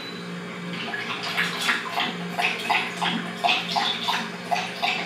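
A dog lapping water from a bowl: quick wet laps, about three a second, starting about a second in, over a low steady hum.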